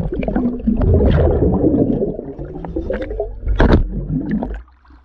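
Water gurgling and bubbling around a surface-supplied diving helmet, with scattered knocks, dropping off sharply near the end.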